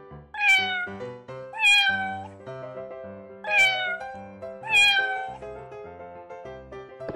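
A cat meowing four times, each meow falling in pitch, in two pairs, over children's background music.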